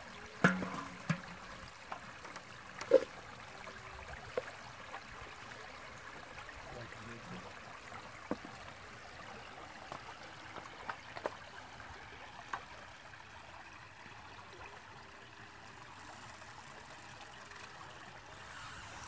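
Steady trickling of flowing water, with a scatter of short sharp splashes and knocks. The loudest comes about three seconds in, and they thin out in the second half.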